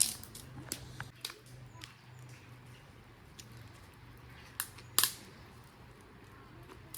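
A few sharp clicks and taps, scattered and irregular, the loudest about five seconds in, over a faint steady low hum.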